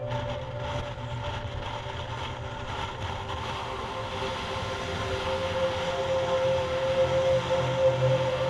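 Yamaha MT-03's parallel-twin engine running at highway speed, with wind rushing over the camera microphone. The sound grows louder over the second half as the motorcycle speeds up.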